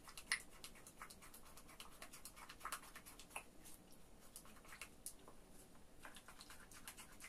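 Faint, rapid ticking and scraping of a spatula stirring a thick aloe-gel cream in a small mixing bowl.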